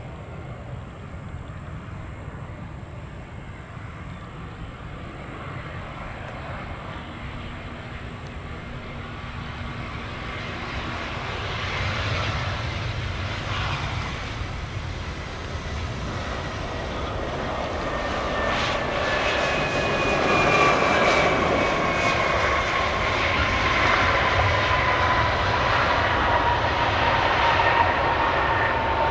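Jet airliner engines growing steadily louder as the plane draws near, with a high whine that slides slowly down in pitch over the last ten seconds.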